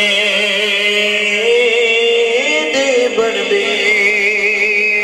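A man's voice singing a naat (Urdu/Punjabi devotional verse) through a loudspeaker system, drawing out long held notes with no break for words. The pitch wavers in a quick warbling ornament near the end, over a steady lower tone.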